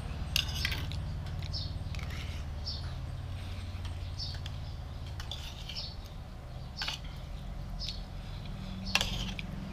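Spoon and fork scraping and clinking against a plate of rice and stir-fry, with chewing, in short scattered clicks and scrapes about once a second over a steady low hum.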